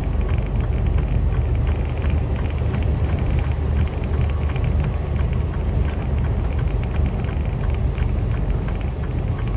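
Inside the cab of a Mercedes Actros lorry at speed: a steady low engine drone with tyre noise from the wet road surface.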